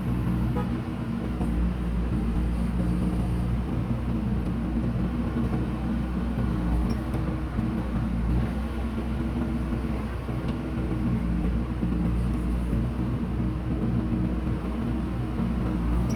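Diesel engine of a JCB backhoe loader running steadily, a low even drone with no rise or fall in pitch.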